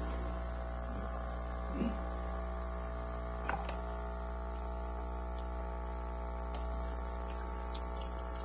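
Arno Nescafé Dolce Gusto coffee machine's vibratory water pump running with a steady electric buzz, pumping hot water through the machine. It gives only a little water, the sign of a partly blocked pump or water path.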